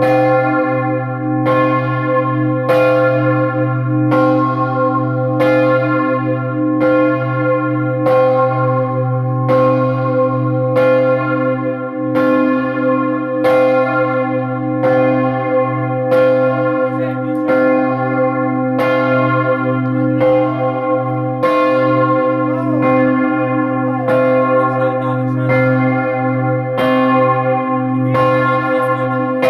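The great bell (campanone) of Scarperia's Palazzo dei Vicari swung by hand from a rope, its clapper striking about once every second and a half. Each loud stroke rings on into the next, heard from right under the bell.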